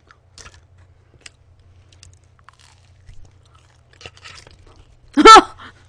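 Close-miked chewing of pizza: soft bites, small crunches and wet mouth clicks. About five seconds in comes one short, loud voiced exclamation.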